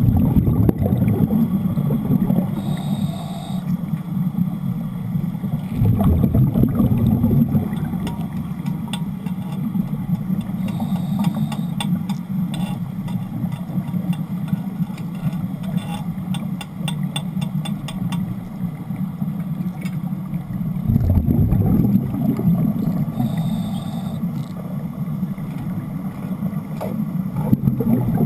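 Underwater rumble and bubbling during wet welding with Broco rods, swelling into louder surges several times, with a run of rapid clicks in the middle.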